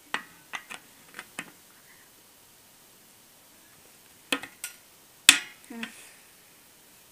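A few sharp clicks and knocks from a small plastic slime container and its lid being handled, in two clusters, the loudest about five seconds in.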